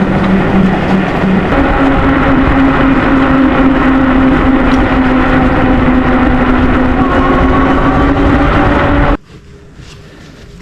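Magicycle electric bike being ridden, its motor whining at a steady pitch over a heavy rushing noise, really loud. The sound cuts off abruptly about nine seconds in.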